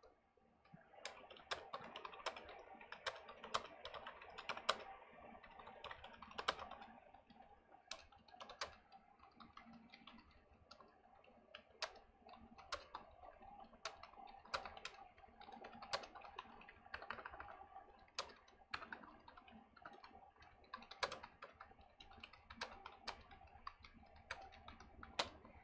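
Typing on a computer keyboard: faint, irregular runs of key clicks with short gaps.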